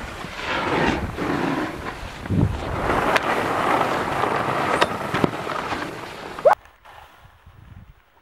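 Snowboard running over packed snow, its edges scraping, with wind buffeting the microphone and a few sharp clacks of the board. The sound cuts off suddenly about six and a half seconds in, leaving only faint background.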